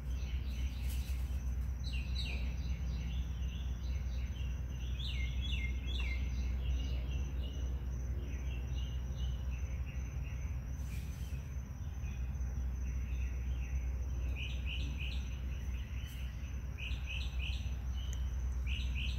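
Night insects calling: short chirps in quick groups, repeated throughout, over a steady low hum and a faint steady high whine.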